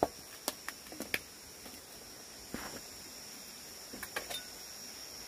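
A steady high insect drone, with about nine light knocks and clicks scattered through it.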